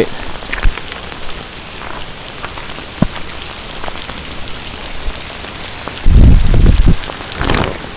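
Heavy rain falling on a nylon poncho close to the microphone: a steady hiss with a few sharp drop taps. About six seconds in, a second of loud low rumbling thuds on the microphone stands out above the rain.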